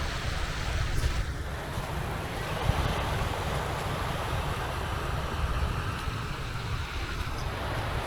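Sea waves washing in along the shore, a steady wash that swells in the middle, with wind rumbling on the microphone.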